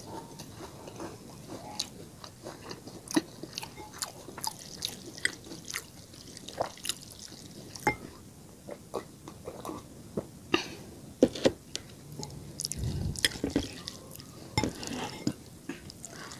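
Close-up eating sounds of instant noodles being chewed: irregular wet mouth clicks and smacks, with a low swell a little after the middle.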